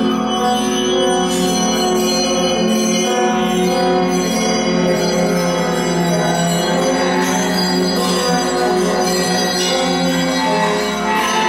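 Live free-form ensemble music from bowed double bass, electric guitar and drums: a dense, sustained texture of many held, ringing tones.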